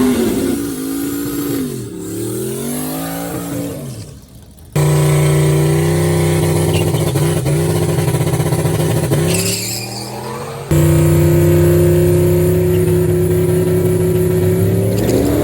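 Car engine revving and pulling through the gears in several short clips that change abruptly; the pitch drops and climbs, then holds steady at high revs.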